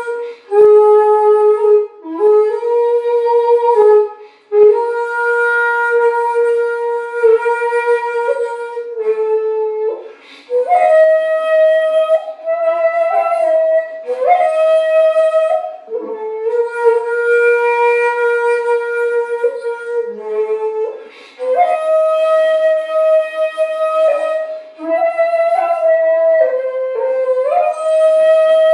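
Solo shakuhachi playing Nezasa-ha Kinpū-ryū honkyoku: long breathy held notes with slides into the pitch, in phrases broken by short pauses for breath. The phrases move higher about ten seconds in.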